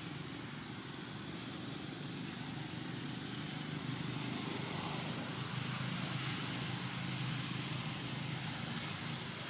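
Low engine rumble of a motor vehicle passing, swelling louder through the middle and easing off near the end.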